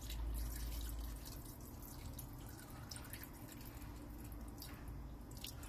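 Water poured in a thin stream into a wide nonstick pan of rice cakes and dry ramen noodles: a steady splashing trickle, loudest in the first second.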